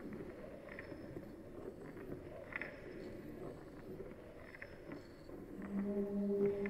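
Experimental acoustic improvisation: a grainy, scraping noise texture with scattered small clicks and faint squeaks. About six seconds in, a steady low drone tone with overtones enters and grows louder.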